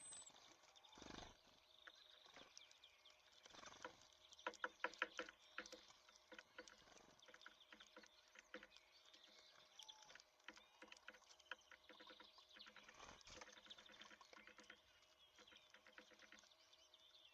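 Small songbirds at a seed feeder: quick sharp taps and clicks of bills on sunflower seeds and the feeder, loudest in a rapid run about four to six seconds in, with faint short high chirps between.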